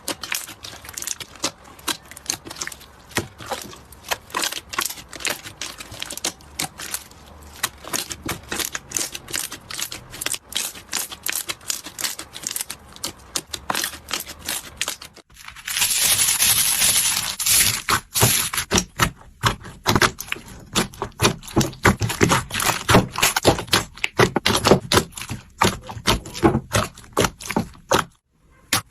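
Slime being squeezed and poked by hand, making a rapid, dense run of crisp clicks and crackles. The sound breaks off briefly about fifteen seconds in, then comes back with a short hissy stretch followed by louder, sharper pops.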